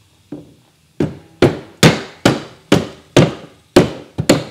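Rubber mallet striking the handle of a socket wrench fitted on a lawnmower's blade nut, to break the nut loose: a light tap, then a steady run of about eight sharp blows, about two a second.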